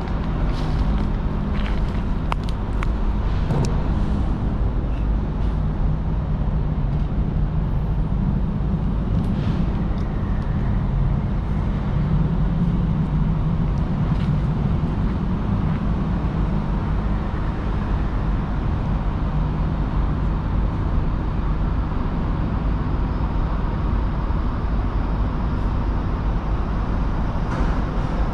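Steady low urban background rumble with a constant hum, with a few faint clicks in the first few seconds.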